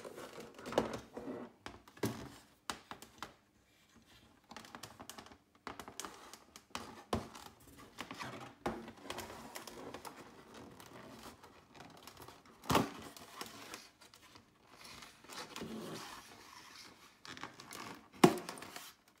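A thin metal tool scraping and prying a cardboard back panel out of a plastic electronics-kit case: irregular scratching, clicking and small knocks, with two sharper knocks, one about two-thirds of the way through and one near the end.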